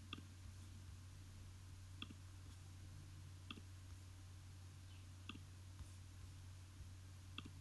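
Faint steady low hum with five short, soft clicks spaced about one and a half to two seconds apart.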